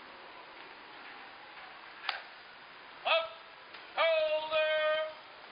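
A soldier's shouted ceremonial drill commands in a sung-out style: a short call, then a longer drawn-out call held on a steady pitch near the end. A single sharp click comes about two seconds in.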